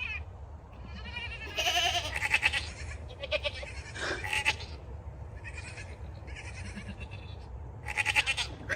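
Goats bleating several times with quavering, wavering calls, the loudest about two seconds in and again near the end.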